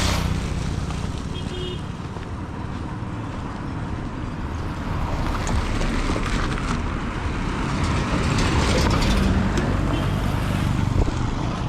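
Road traffic noise: vehicles passing on a busy road, a steady rumble that swells in the second half.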